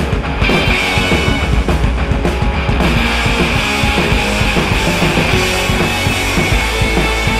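Rock music with electric guitar and drums.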